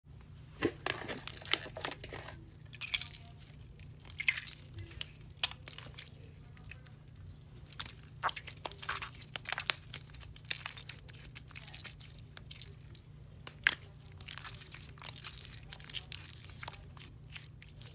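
Hands playing with a crunchy slime close to the microphone: irregular crunching crackles, clicks and sticky pops.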